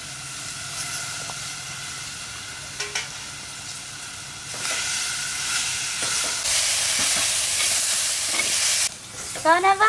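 Food frying in hot oil in a pan: a steady sizzle that grows louder about halfway through, is loudest for a couple of seconds, and then cuts off suddenly near the end.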